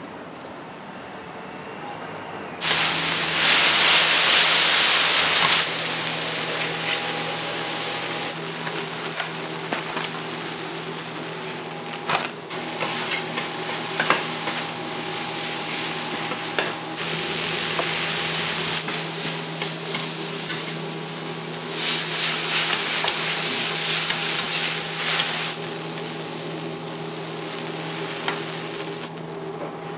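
Yakisoba noodles sizzling on a flat iron teppan griddle while metal spatulas scrape and click against the griddle. The sizzle starts about three seconds in, loudest at first and again a little past twenty seconds, over a steady low hum.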